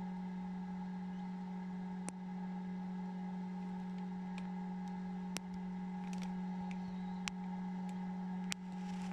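Egg incubator running with a steady electrical hum, broken by four short sharp ticks spread through it.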